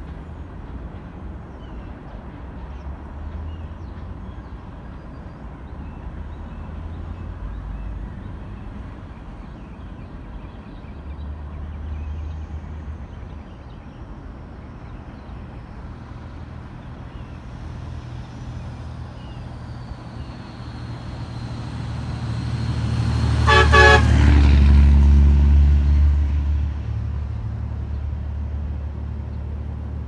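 Low rumble of a passing vehicle that swells to its loudest about 24 seconds in, with a brief horn toot at the peak.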